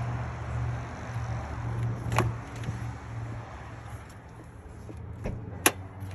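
A car's door and latches being handled: a clunk about two seconds in and a sharp click near the end, over a steady low hum.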